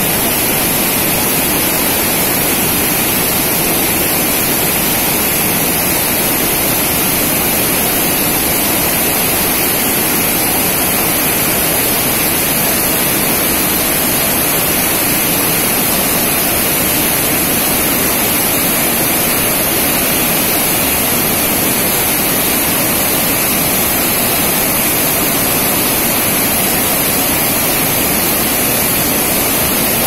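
Fourteen Falls on the Athi River in flood: the waterfall and the muddy rapids below it make a loud, steady rush of water with no let-up.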